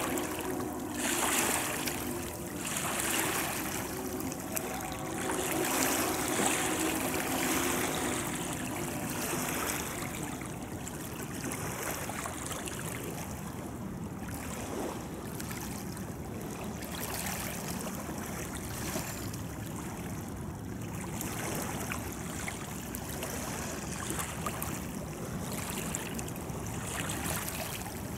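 Wind and water lapping, over the distant rolling rumble of a freight train of covered hopper cars crossing a steel truss bridge. A few faint held tones in the first several seconds fade out.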